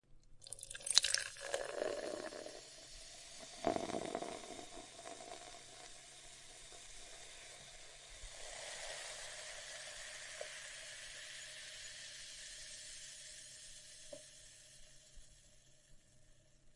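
Coffee being made: a splashing, gurgling liquid sound about a second in and again near four seconds, then a steady hiss that slowly fades out.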